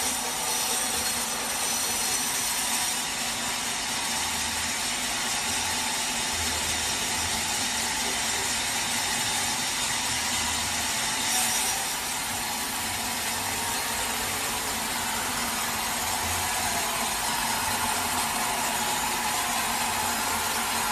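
Sawmill saw running steadily through a teak log, with a short sharp click about 11 seconds in.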